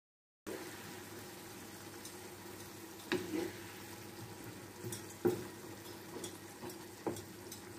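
Fish curry sizzling in a frying pan while a wooden spatula stirs it, knocking against the pan three times. The sound starts about half a second in.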